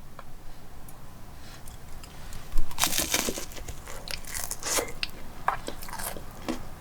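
A bite into a crisp-battered corn dog, with a loud crackly crunch about two and a half seconds in, followed by chewing with scattered small crunches.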